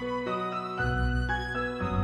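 Slow instrumental music with sustained notes over a deep bass, the chords changing about once a second.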